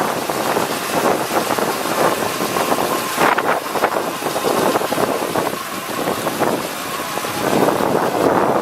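A 2006 Ford F-150 pickup's engine running, with wind buffeting the microphone.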